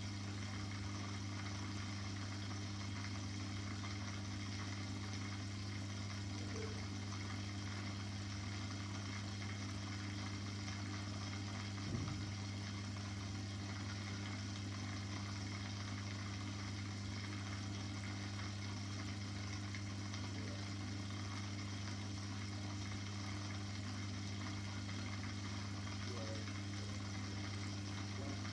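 Aquarium pump humming steadily, a low even hum, with one short click about twelve seconds in.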